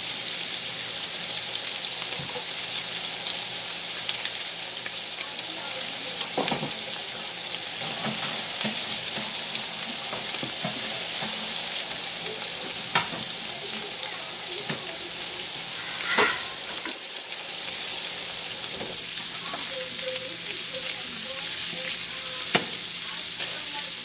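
Sausages frying in butter in a large skillet, a steady sizzling hiss, with a few sharp clicks along the way.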